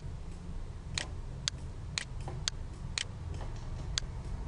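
Computer mouse button clicking, six short sharp clicks about half a second apart as spline vertices are placed one by one, over a steady low hum.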